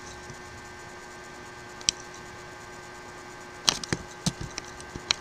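Computer keyboard and mouse clicks as text is selected and copy-pasted: one click about two seconds in, then a quick run of taps and clicks from a little before four seconds on. A faint steady electrical hum runs underneath.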